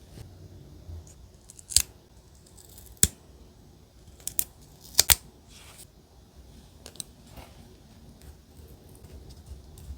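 Scissors snipping paper: a handful of sharp, separate snips at irregular spacing, the loudest a close pair about halfway through.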